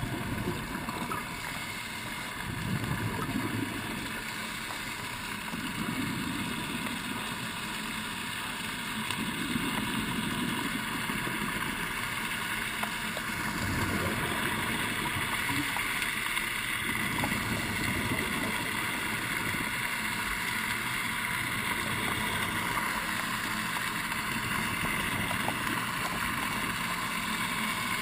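Scuba diver's exhaled regulator bubbles heard underwater, rumbling in bursts every three to four seconds with each breath, over a steady high hum.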